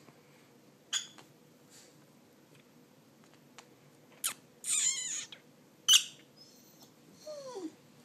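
Peach-faced lovebirds calling: short sharp shrieks about a second in and near six seconds, and a longer harsh chattering call around five seconds.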